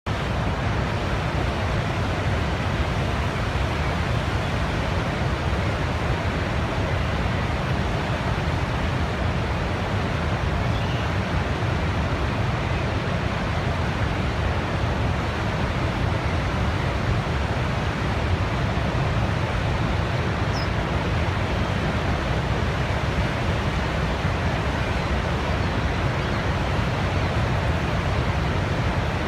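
Steady, unbroken rushing noise with no swells or pauses, heaviest in the low end.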